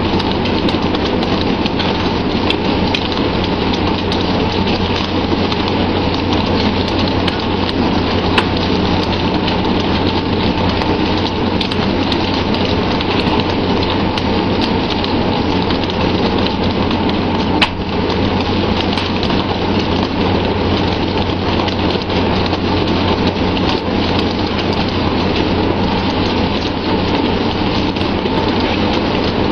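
Steady rushing, rain-like noise of sea water splashing and churning alongside a tuna fishing boat's hull, over a steady low hum. Scattered small clicks and knocks run through it, with two sharper knocks about 8 seconds and 18 seconds in.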